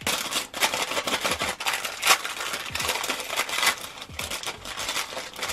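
A glossy plastic mystery toy bag crinkling and tearing as it is pulled open by hand, a dense run of crackles and small clicks.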